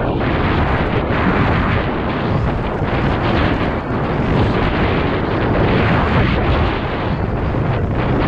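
Downhill mountain bike ridden fast over roots and dirt, heard through an action camera's microphone: heavy wind buffeting over the mic with the bike's continuous rattle and chatter of tyres and frame over the rough ground.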